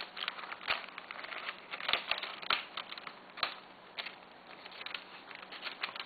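A paper envelope being handled and opened: crisp rustling and crinkling of paper broken by irregular sharp clicks and taps.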